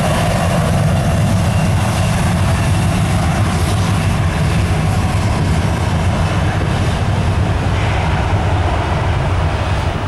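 Gulfstream G450's twin rear-mounted Rolls-Royce Tay turbofans at takeoff thrust, heard from behind the jet as it rolls down the runway: a loud, steady rumble with a broad hiss over it.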